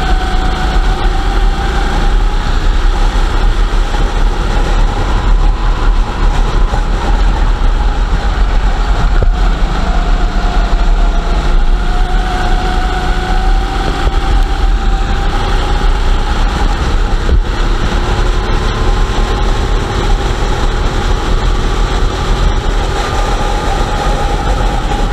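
Go-kart engines running flat out, heard from on board one kart while racing others. The engine pitch rises and falls with speed through the corners.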